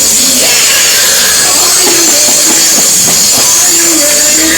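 Loud church music with drums, a voice rising and falling over it, and a steady hiss from the overloaded recording.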